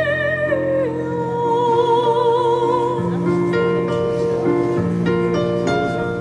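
A high voice, likely a woman's, sings long notes with vibrato in an operatic style over low held accompaniment. From about halfway through, quick short instrumental notes join in.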